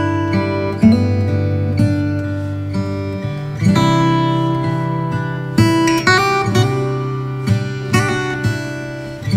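Background music: acoustic guitar playing strummed chords.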